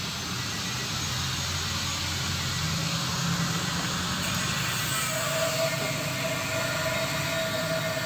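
A grinder grinding steel, a steady noisy grinding sound with a whining tone that sets in about five seconds in.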